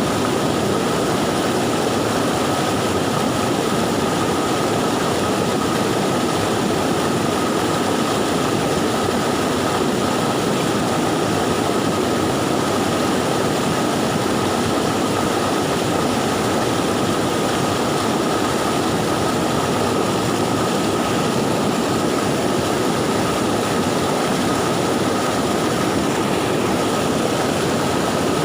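Swift, swollen river after a flood, rushing loudly and steadily, with a thin steady high tone over it.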